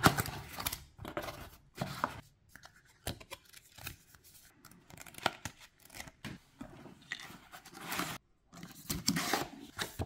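Cardboard product box being opened by hand and its paper instruction booklet and cards pulled out and handled: irregular scrapes, rustles and small clicks of cardboard and paper, the sharpest click right at the beginning.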